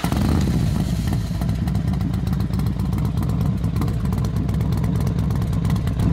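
Motorcycle engine running steadily, a low, rapid beat.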